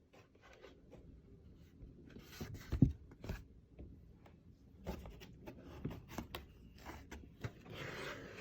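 Faint handling noises: scattered rustles and small clicks, with one louder knock a little before three seconds in.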